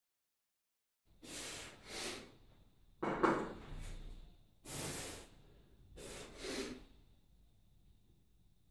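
A man's heavy breathing from the effort of kettlebell thrusters: starting about a second in, four bursts of in-and-out breaths roughly a second and a half apart, with the third the loudest. A faint steady high tone runs underneath.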